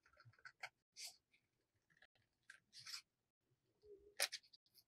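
Scissors snipping through craft paper: a series of short, faint cuts with the paper rustling, the loudest snip about four seconds in.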